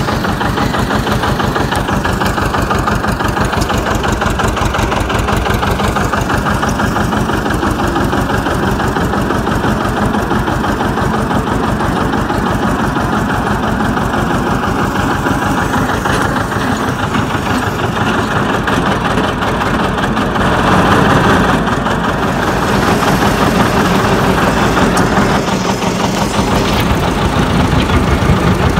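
John Deere 730 two-cylinder diesel tractor engine running under way, with an even, rapid putt from its two cylinders. It grows a little louder about two-thirds of the way through.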